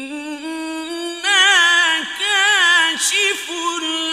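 A male reciter's voice in mujawwad Quran recitation: long, held, melismatic notes with quick wavering ornaments, unaccompanied. It grows louder about a second in.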